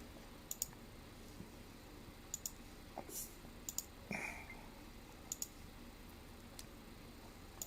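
Sparse light clicks, several coming in quick pairs, over quiet room tone, with a short rustle about halfway through.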